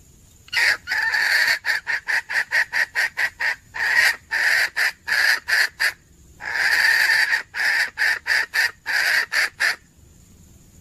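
Red junglefowl hen cackling, a hen's call to draw a rooster: two runs of calls, each mixing a few longer notes with quick short clucks at about four a second, with a short break about six seconds in.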